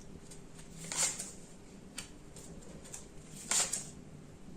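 Tarot cards being handled: two short swishes of a card sliding or being flipped onto the spread, about a second in and again some two and a half seconds later, with a few faint taps.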